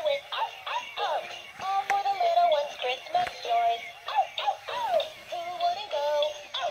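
Animated plush Christmas puppy toy singing a song with backing music through its small built-in speaker, a thin, tinny sound with no bass.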